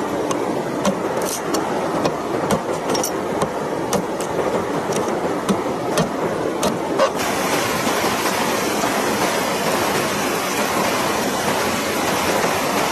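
A large knife chopping and splitting fresh green bamboo: a run of sharp, irregular knocks, about one or two a second, over the steady rush of a fast river. About halfway through, the river's rush turns louder and brighter and the chops become harder to pick out.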